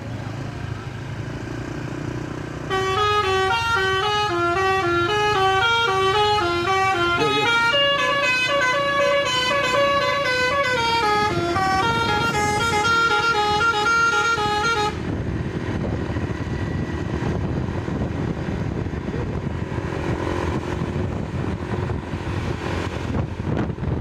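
Multi-tone telolet (Basuri) horn on an Indonesian coach, playing a quick stepping melody of several notes at once. It starts about three seconds in and cuts off suddenly about twelve seconds later. Engine and road noise follow as the coach comes past.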